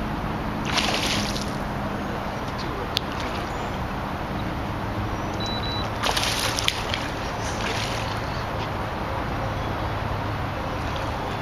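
Topwater bass lure splashing on the surface as it is retrieved, in two short splashy bursts about a second in and around six seconds in, over a steady hum of distant highway traffic and wind.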